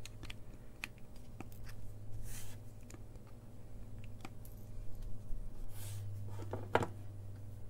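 Light handling sounds of a small circuit board being picked up and turned over on a wooden bench: scattered soft clicks and rubbing, with a slightly louder knock near the end, over a steady low hum.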